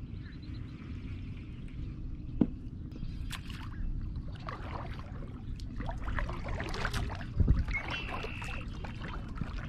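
Double-bladed kayak paddle strokes: the blades dipping and pulling through calm water, with water splashing and trickling off them, over a steady low rumble. A single sharp knock comes about two and a half seconds in.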